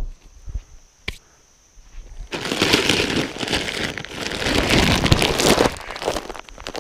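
Shelled corn poured out of a bag onto the ground: a dense rushing, pattering pour that starts a couple of seconds in and lasts about three seconds. A single sharp knock right at the start.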